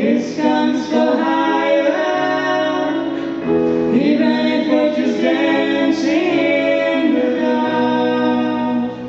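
A woman and a man singing a duet through microphones, amplified, with long held notes.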